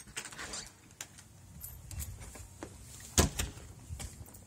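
A door being opened by its knob: latch clicks and knocks, with a sharp clack about three seconds in.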